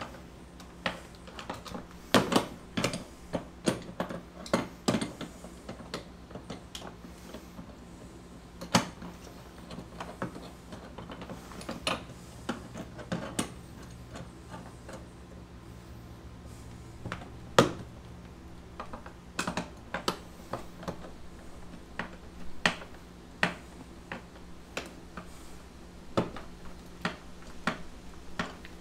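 Irregular sharp clicks and small metallic clinks of a hand tool and bolts as hardware is fitted and tightened on the cart's steel frame bracket, busiest a few seconds in, with one louder knock a little past halfway.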